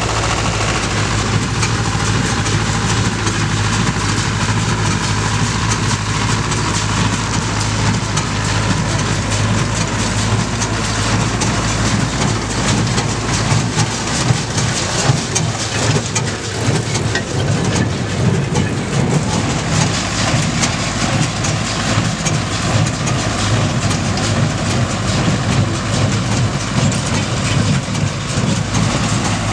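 Ursus C-360 tractor's four-cylinder diesel engine running steadily under load, driving a Sipma Z224 small square baler, with the baler's pickup and plunger clattering as it takes in and presses straw.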